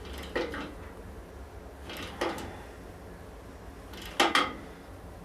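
Metal parts of a wood lathe being handled as the tailstock is set up: a few short knocks and clicks, the loudest a quick pair about four seconds in.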